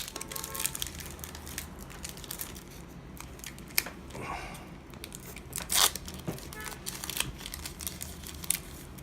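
Foil Yu-Gi-Oh booster-pack wrapper crinkling and being torn open, with cards handled in between; the loudest rasping rip comes about six seconds in, after a smaller one a little past four seconds.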